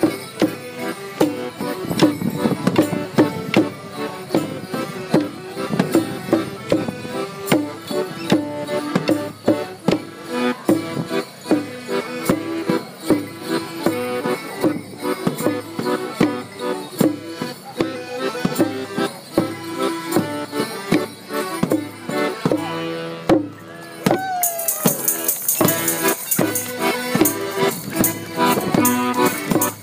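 Piano accordion playing a lively folk dance tune for border morris, with wooden dance sticks clacking sharply in time to the beat. A high rattle joins in near the end.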